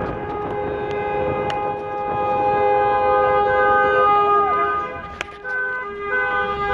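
Several car horns held down together in long overlapping blasts, the celebratory honking of a wedding convoy; a little past halfway one horn switches to short repeated toots.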